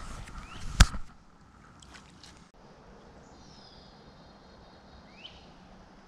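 A sharp thump a little under a second in, amid a few lighter knocks and clicks. After that there is faint steady outdoor background with a few short, high, rising chirps.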